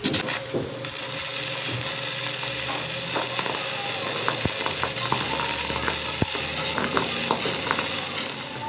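Stick (shielded metal arc) welding on a truck suspension trunnion shaft. There are a few sharp clicks as the rod is struck, then the arc catches about a second in and gives a steady crackling sizzle with scattered pops while a bead is laid on the shaft.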